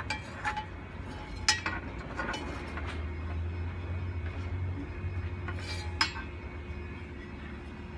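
Scattered light clicks and knocks as the plastic locating arm of an autopilot wheel drive is handled and pressed against a steering pedestal and its stainless tubes, the sharpest about a second and a half in and again near six seconds. A steady low hum runs underneath.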